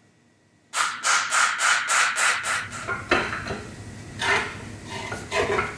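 Hammer striking a punch against the old inner knuckle seal of a Dana 60 front axle to knock it out: a quick run of about seven sharp metal strikes, roughly four a second, starting about a second in. A few separate metal knocks and scrapes follow.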